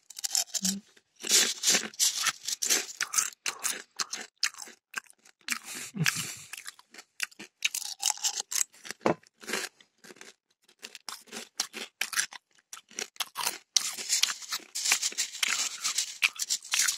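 Dry cornflakes crunching, scooped by hand from a glass bowl and chewed, in runs of quick crackles with short pauses between.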